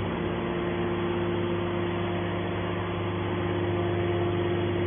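Hydraulic power unit of a scrap-metal wire baler running steadily, a constant machine hum with a steady mid-pitched tone over it.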